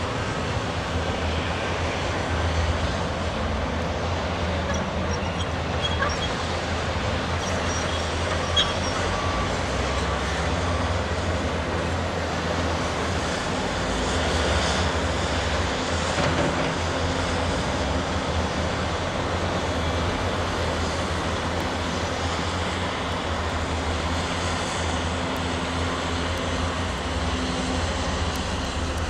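Heavy diesel construction machinery running steadily, a continuous low engine drone, with one short sharp knock about eight and a half seconds in.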